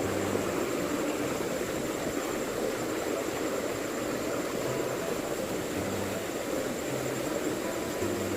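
Steady rush of water flowing in a small stream, an even noise without breaks, with a faint thin high whine held throughout.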